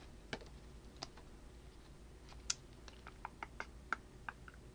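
Faint clicks and snaps of glossy chrome trading cards being thumbed through by hand, one card slid off the stack at a time: a few scattered clicks, then a quicker run of them in the second half.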